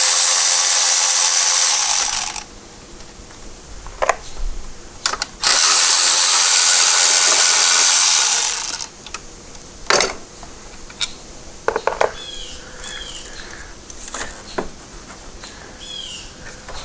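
Milwaukee cordless electric ratchet spinning out the bolts that hold a power steering fluid reservoir, in two runs of a few seconds each, the second about five seconds in. Afterwards, a few scattered clicks and knocks as the loosened parts are handled.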